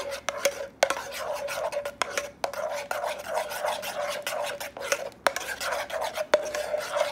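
A metal spoon stirring thick custard in a saucepan, mixing in cocoa powder. It makes continuous rapid scraping strokes against the pot, with frequent sharp clicks where the spoon knocks the pan's sides.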